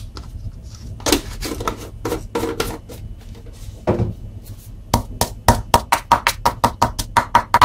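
Stone pestle pounding in a heavy stone mortar, crushing coriander root and pepper with salt: a few scattered knocks, then from about five seconds in a fast, even pounding of about five strokes a second.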